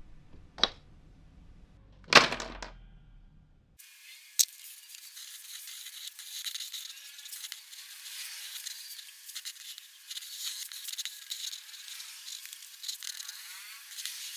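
Two sharp knocks in the first few seconds, then about four seconds in a continuous, thin scratching of a black pigment pen nib moving over paper, full of small ticks.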